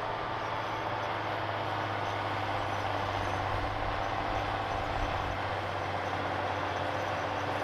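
John Deere 7430's six-cylinder diesel engine running steadily under load as the tractor pulls a Pöttinger Terrasem 4C seed drill, with a steady low hum that grows a little louder about halfway through.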